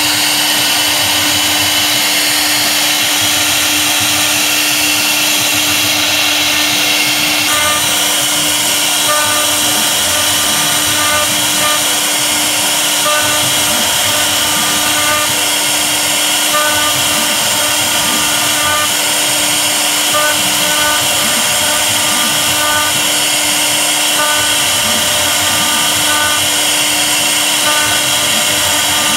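CNC router spindle running at high speed, its V-bit cutting a relief carving into a wooden board: a steady, high-pitched whine with cutting noise. Short pitched chirps come and go over it as the machine moves.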